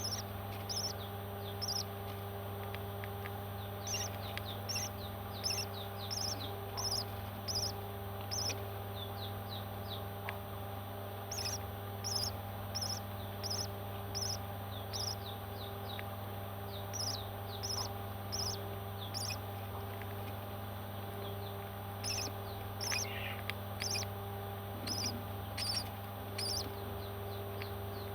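Baby parrots chirping: runs of short, high peeps repeated about one to two a second, with pauses between runs, over a steady low electrical hum.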